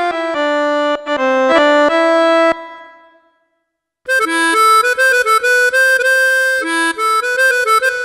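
Yamaha PSR-E453 portable keyboard playing chords and a melody on its bandoneon voice, a reedy free-reed sound. The first phrase fades out about two and a half seconds in, and after a short silence a brighter second phrase begins.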